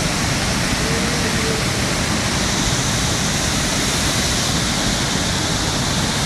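Floodwater of a swollen mountain river rushing past in a steady, unbroken rush.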